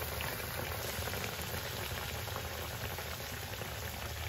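Batter-coated, potato-stuffed bread patty deep-frying in hot oil: a steady sizzle with fine crackling.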